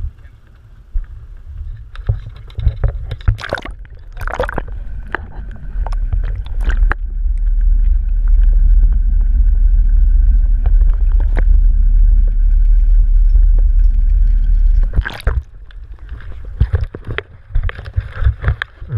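Crab trap being hauled up by its line: knocks and clatter of the trap and rope at the start and end. In the middle comes a loud, muffled low rumble of water rushing past a submerged camera, with a faint steady high whine above it.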